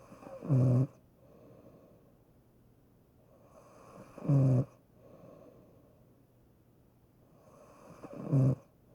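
A person snoring in a slow, even rhythm: three loud snores about four seconds apart, each followed by a softer breath.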